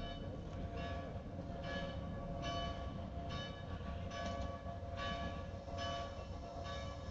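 A bell ringing in regular strokes, roughly one a second, each stroke leaving lingering metallic tones, over a steady low rumble.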